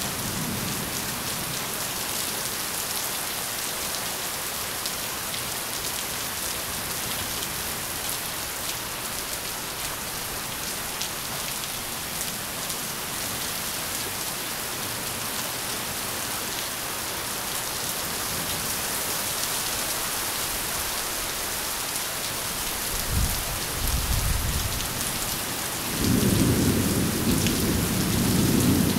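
Heavy rain falling steadily in a thunderstorm. Thunder rumbles about three-quarters of the way through, then a louder, longer roll of thunder comes in the last few seconds.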